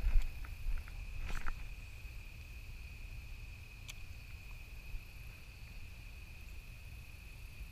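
Crickets trilling steadily in one high, unbroken tone. A few clicks and rustles come in the first second and a half, over a low rumble.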